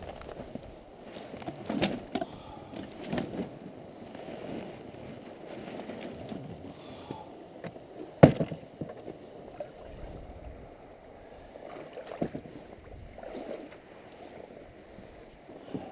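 Oars splashing and sloshing as a small one-man pontoon boat is rowed, with scattered knocks from the oars and frame. A sharp knock a little past halfway is the loudest.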